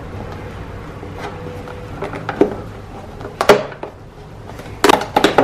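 A compartment of a day-by-day gift calendar being opened and its contents handled: scattered sharp clicks and taps, the sharpest about three and a half seconds in, then a quick run of clicks near the end.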